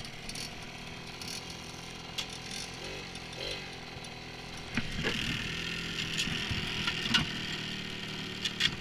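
Small moped engine running steadily as the moped is ridden, with a brief rise and fall in pitch about three seconds in. Several sharp clicks and rattles from the bike come in the second half.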